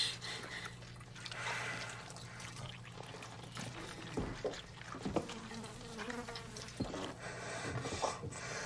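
Flies buzzing in a low, steady drone, with a few soft clicks here and there.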